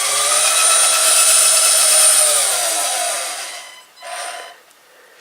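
LEGO Technic Control+ electric motors of the model rally car whining as they are run from the phone app: the whine rises in pitch to a peak about two seconds in, then winds down and stops, with a brief second whir about a second later.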